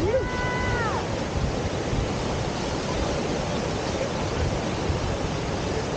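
Steady rush of river water pouring over a standing surf wave: a continuous, even roar of noise, with wind on the microphone. In the first second a short high-pitched call with several overtones holds level, then falls away.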